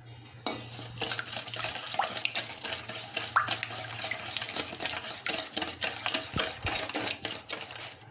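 Wire whisk beating eggs, sugar and oil in a stainless steel bowl: fast clinking and scraping of the wires against the metal with liquid sloshing. It starts about half a second in and stops near the end.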